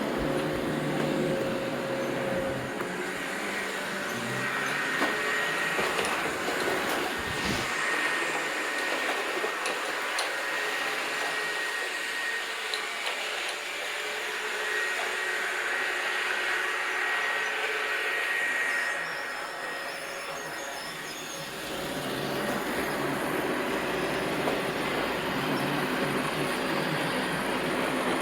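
Robot vacuum cleaner running: a steady motor and brush noise, with a thin high whine through the middle stretch.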